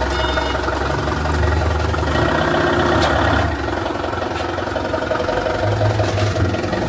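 A heavy machine's engine running steadily, revving up for a couple of seconds near the start and then dropping back toward idle. A reversing beeper sounds briefly at the very start.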